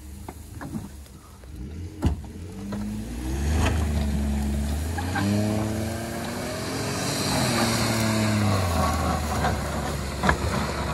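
Ford F-150 EcoBoost pickup's engine revving hard under load while towing a dead car through a field on a recovery rope. The revs climb in two steps and fall away near the end, with tires spinning on dirt and a sharp knock about two seconds in.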